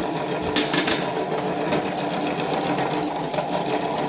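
Toy washing machine running, its small battery motor whirring steadily as the drum turns, with a few sharp clicks about half a second to a second in.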